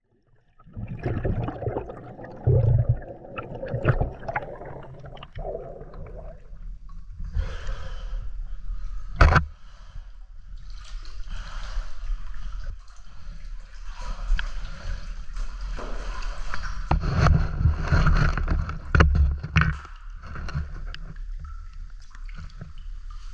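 Water sloshing and gurgling as divers move about in a cave sump pool, uneven and irregular, with a sharp knock about nine seconds in.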